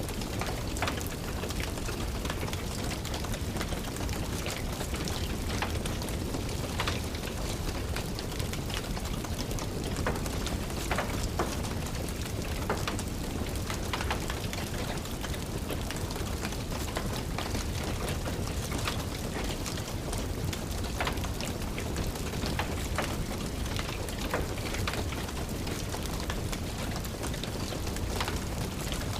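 Steady rain mixed with the scattered crackles and pops of a fireplace fire.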